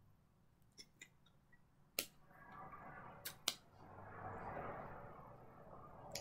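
Faint sharp clicks and taps: one about two seconds in, a close pair a second later and one near the end, with soft rustling between them, from a person's hands and sweater moving while signing.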